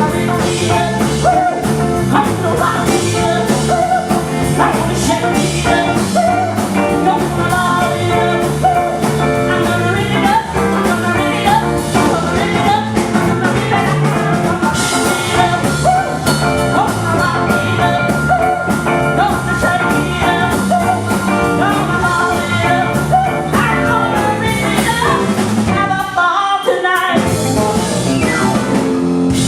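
A live rock-and-roll band playing a blues-style number with drum kit and guitar. A note is held for several seconds midway through, and the low end drops out briefly near the end.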